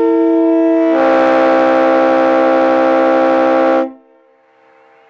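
Loud air horn blast: a steady chord of two tones that grows into a fuller, louder chord of several tones about a second in, then cuts off sharply before the fourth second ends.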